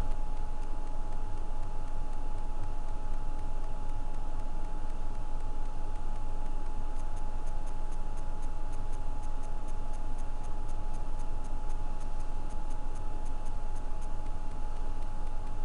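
Steady background hum and hiss with a constant thin whine, and a run of faint, fast ticks, about five a second, in the middle.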